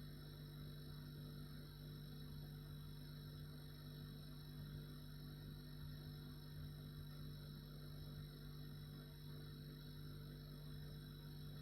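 Refrigerator running: a faint, steady low hum with a soft hiss above it.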